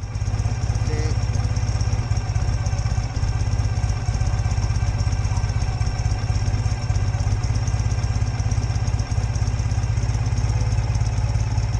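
Sidecar motorcycle engine idling steadily with an even low rumble.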